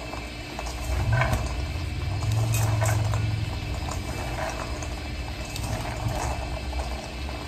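Freshly shelled pinto beans rattling and clicking against a stainless steel bowl as hands scoop and stir them, over a low rumble that is loudest from about one to three and a half seconds in.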